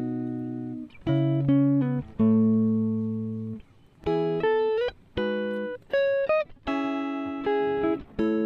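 Instrumental background music: a plucked, guitar-like instrument plays a melody in separate notes and chords, each struck and left to ring out.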